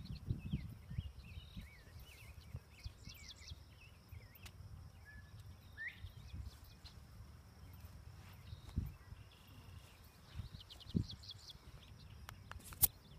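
Open-field ambience: wind rumbling on the microphone, with birds chirping and calling throughout, and a sharp click near the end.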